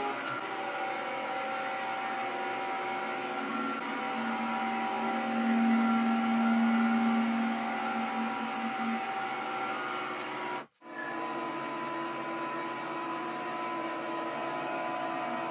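Mini metal lathe running steadily with a motor whine while its tool cuts brass, boring inside a brass tube; a lower tone swells for a few seconds in the middle. The sound drops out briefly about two-thirds in, then the lathe runs on as the tool turns a groove on the outside of the bar.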